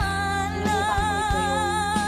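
A song with a singer holding one long note with vibrato over steady instrumental backing.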